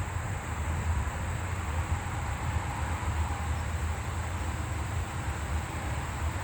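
Wind buffeting the microphone: a steady, unevenly fluttering low rumble with a light hiss over it.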